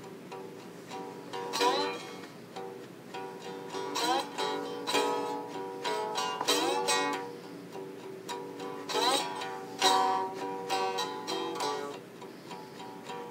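Homemade plank-necked string instrument played with a slide: plucked notes ring out, with several quick upward slides into notes.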